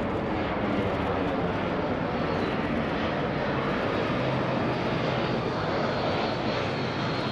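Jet noise from two Aero L-39 Albatross jet trainers' turbofan engines as they fly past in close formation: a steady, even rush. A faint high turbine whine comes in during the second half and glides slowly down.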